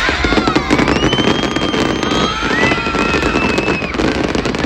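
Fireworks going off in a dense, rapid crackle of many small pops, with several long high drawn-out tones sounding over it.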